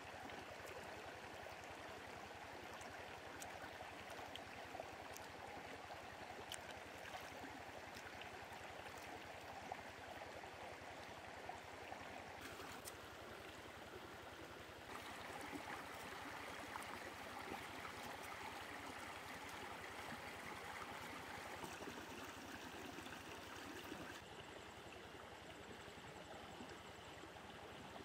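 Shallow stream flowing over rocks, a steady rushing and babbling, with occasional light clicks; it gets somewhat louder for several seconds in the second half.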